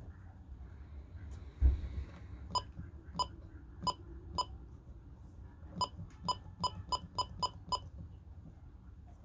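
Icom IC-M330 VHF marine radio's key beeps as its channel buttons are pressed: four short beeps, then a quicker run of seven. A single low thump comes about a second and a half in, before the beeps.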